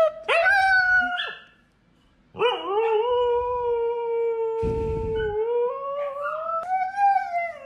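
Husky howling in protest at its owner's command. A short call that swoops up, then after a pause one long held howl that climbs in pitch near the end.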